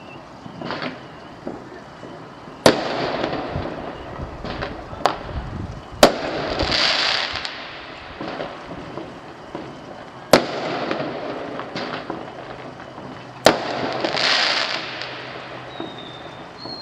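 Fireworks going off: four sharp bangs a few seconds apart, each followed by about a second of crackling, with a few smaller pops in between.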